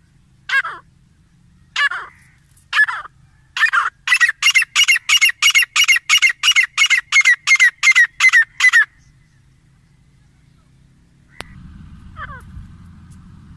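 Grey francolin calling: a few single, downward-sliding notes, then a fast run of loud, repeated notes, about three a second for some five seconds. Near the end, after a sharp click, a steady low hum comes in under one more call.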